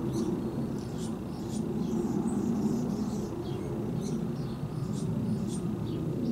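Steady low rumble of distant traffic, with faint short high chirps now and then.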